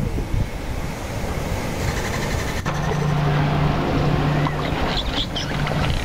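Underwater sound around a pod of dolphins: steady rushing water noise, with a sharp click about halfway through followed by a low steady hum. A few short high dolphin whistles come near the end.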